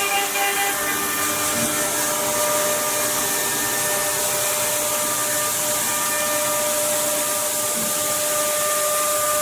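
High-speed CNC router spindle running and cutting, a steady whine of several held tones over a constant hiss.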